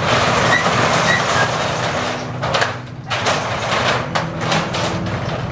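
Corrugated steel roll-up shutter door being pushed up by hand, its slats rattling loudly in the tracks, with a brief pause about two and a half seconds in before a second push.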